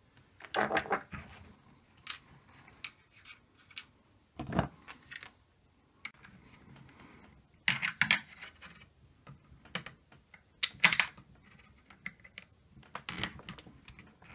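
Irregular clicks, taps and rattles of small plastic parts being worked by hand as a C-clip is pressed into place under the switch of a blind-automation motor unit, with a few louder clusters of rattling from the venetian blind's headrail and slats.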